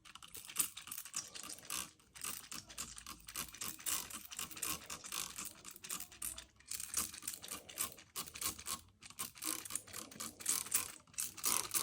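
Hand spray bottle misting water onto freshly transplanted lavender seedlings in grow pots, a rapid, irregular run of short spritzes.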